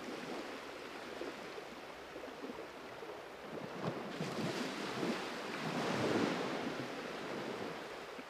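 Small waves washing on a sandy shore, with wind on the microphone, swelling and easing and fading out at the end.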